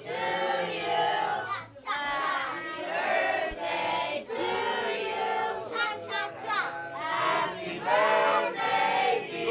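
A group of children and adults singing a birthday song together.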